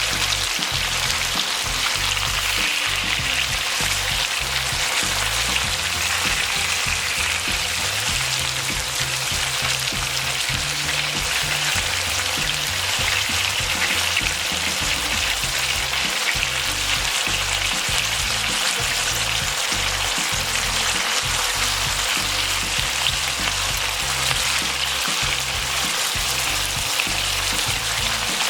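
Food frying in hot oil: a steady, dense sizzle and crackle that doesn't let up. Background music plays underneath.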